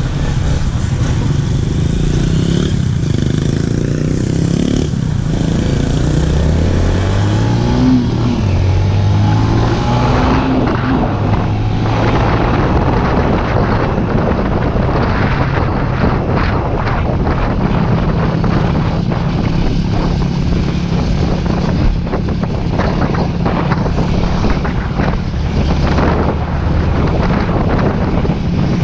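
Small motorcycle's engine running under the rider, its pitch climbing twice as it accelerates a few seconds in, then holding a steadier note. Wind buffets the microphone as speed builds.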